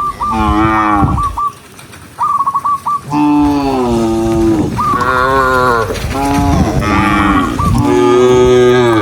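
Cattle mooing: one long moo near the start, then several long moos overlapping one another in turn through the second half. A quick string of short, high chirping notes sounds twice in the first three seconds.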